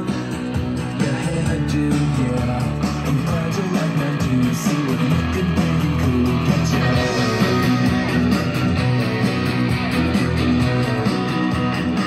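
Guitar-led music played through a pair of KLH 403A indoor/outdoor speakers, which have 4-inch polypropylene mid-woofers. The music runs steadily at an even level.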